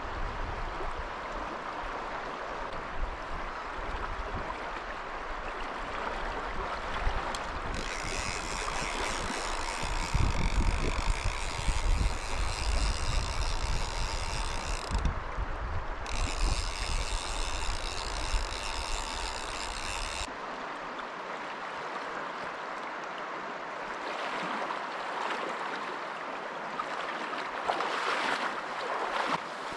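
Shallow river water running fast over rocks, a steady rushing, with wind buffeting the microphone for about the first two-thirds. A high, steady buzz joins about eight seconds in and lasts about twelve seconds, with a short break in the middle.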